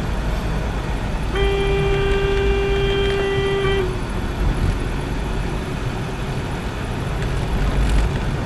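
A vehicle horn sounds one long, steady blast, about two and a half seconds long, starting about a second and a half in. Underneath, the low rumble of the car's engine and road noise carries on, heard from inside the cabin.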